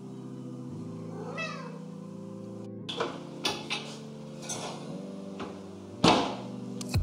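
Soft background music with held notes, over which a small animal gives a short, high falling whine about a second and a half in. Light clicks and knocks follow from about three seconds, with a sharper, louder knock near the end.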